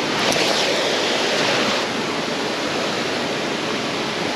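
Water rushing steadily over a dam spillway, a constant hiss-like roar, with a short louder burst of sound over the first couple of seconds.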